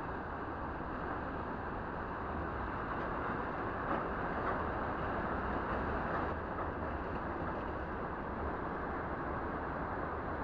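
Steady wind noise rumbling on the microphone, an even rushing hiss with no distinct events.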